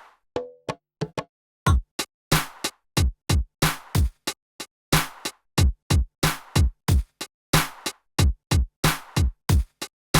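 Background electronic music with a drum-machine beat: deep kick drums whose pitch falls, with sharp hits between them. The beat breaks off briefly just after the start and comes back about a second and a half in.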